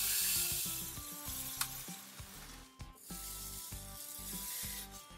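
Sand poured into the plastic hopper and drum of a Bruder toy cement mixer: a steady hiss of falling grains. It breaks off briefly just under three seconds in, then a second pour goes on.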